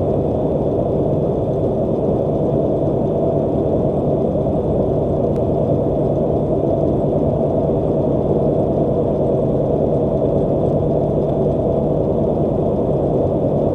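Steady engine and road noise inside a semi truck's cab cruising at highway speed: an even low drone with a constant hum under it.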